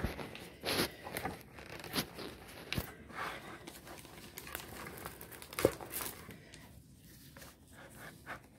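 Crinkling and rustling of a diamond painting canvas's plastic cover and the bag's nylon lining as the canvas is pushed into an art portfolio bag, with a few sharp taps among the rustles; it grows quieter near the end.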